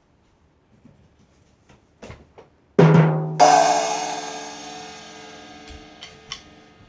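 Drum-and-cymbal 'ba-dum-tss' sting: two light taps, a solid drum hit, then a cymbal crash that rings on and slowly fades. A few light clicks come near the end as the cymbal dies away.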